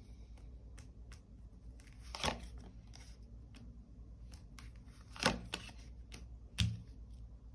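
Tarot cards being handled and laid down on a table: faint rustling and small clicks, with three louder card slaps about two, five and six and a half seconds in, the last with a dull thump.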